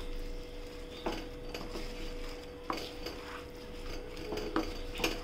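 Spatula stirring fries through a thick creamy sauce in a non-stick pan, with scraping and a few light knocks against the pan.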